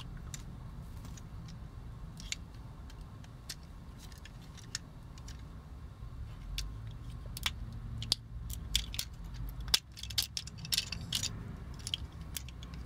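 Scattered light clicks and taps of hard plastic as a reissue G1 Transformers Starscream toy is worked from jet toward robot mode, its parts very tight; the clicks come thicker past the middle. A faint low hum lies underneath.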